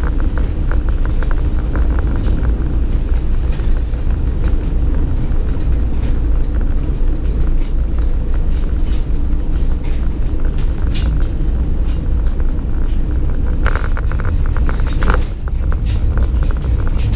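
Steady low road rumble inside a toy hauler trailer under tow. The trailer body and the Jeep carried in it creak and knock now and then, with a cluster of sharper knocks near the end.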